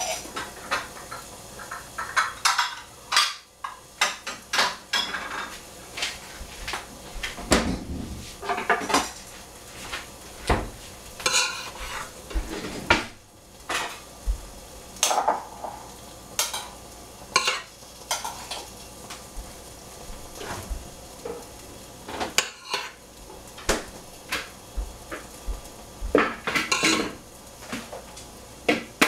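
Metal kitchenware clattering: irregular clinks and knocks of pots, lids and utensils, some with a short metallic ring. Under them runs a steady low hiss from a lidded pan cooking on low heat.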